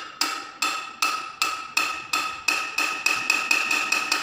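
A metal spoon tapping repeatedly on a metal drinking bottle, each strike ringing with the same clear pitch. The taps come about two or three a second, quicken to four or five a second in the middle, then slow again.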